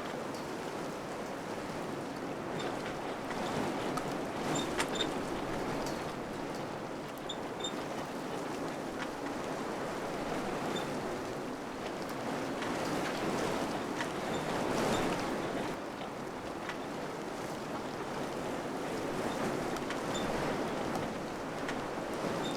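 Wind blowing in gusts: a steady rushing noise that swells about four seconds in and again near the middle, with a few faint, short high-pitched ticks.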